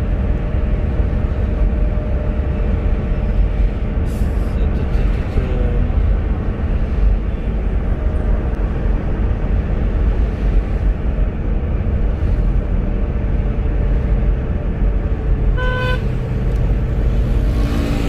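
A car driving on a city road, with a steady low rumble of engine and road noise throughout. A car horn gives one short toot near the end.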